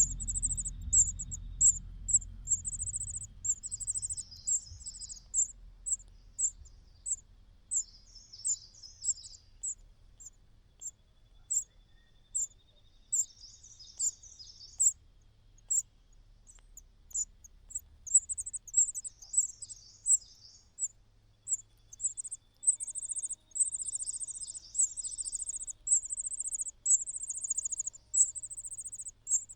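Nestling birds' high, thin begging calls: short chirps repeated several times a second in uneven runs, some running together into brief trills, with softer, lower chirps mixed in.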